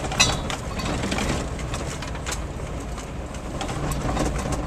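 A car rolling slowly along a gravel road, heard from inside the cabin: a steady low rumble with the tyres crunching over the gravel and occasional sharp clicks, the loudest just after the start.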